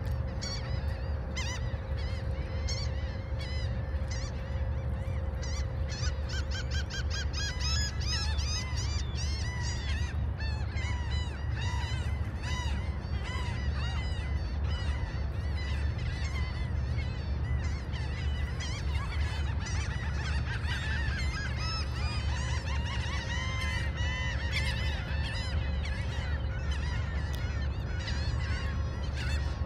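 Flock of gulls calling, many short overlapping cries all through, over a steady low rumble.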